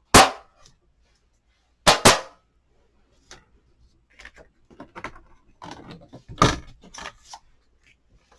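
Sharp clacks of a Stamparatus stamping platform being handled as the stamped cardstock is taken out: one about the start, a quick double clack about two seconds in, then softer tapping and rustling of card and tools with another clack near the end.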